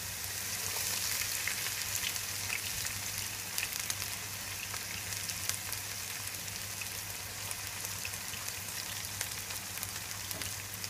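Chopped onion frying in olive oil in a pan, sizzling with fine crackles. The sizzle swells for a second or two early on as diced red bell pepper is dropped into the hot oil.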